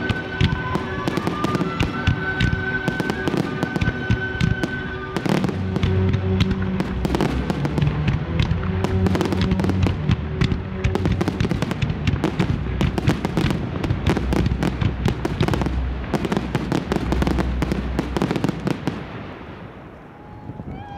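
Professional fireworks display going off in a dense barrage of bangs and crackles over accompanying music, then dying away about two seconds before the end.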